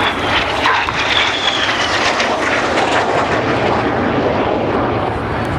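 Red Arrows BAE Hawk T1 jets flying overhead, their turbofan engines giving a steady loud jet noise. A high whine falls slowly in pitch over the first two seconds as an aircraft passes.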